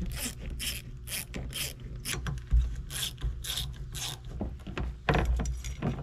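Worm-drive hose clamp on an intercooler pipe being loosened with a T-handle socket driver: a run of short metallic clicks and scrapes, about two or three a second, as the clamp screw is turned, with a louder clatter about five seconds in.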